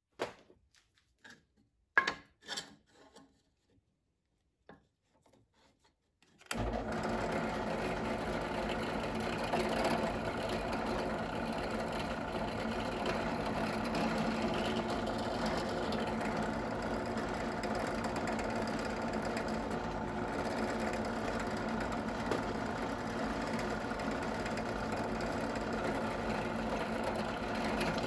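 A few handling knocks and clicks, the loudest about two seconds in, then a benchtop drill press motor switches on abruptly about six seconds in and runs steadily while a hole is drilled in a 3D-printed TPU part.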